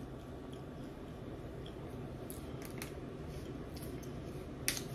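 A plastic water bottle's screw cap being twisted by hand: a few faint clicks, then one sharp plastic click near the end, over a low steady room hum.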